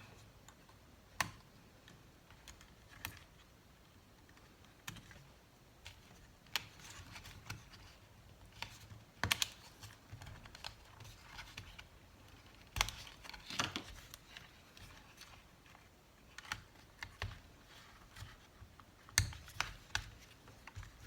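Faint, irregular small clicks, taps and light scrapes of ribbon-cable connectors being unclipped from a MacBook Air A1466 logic board, with a handful of sharper clicks.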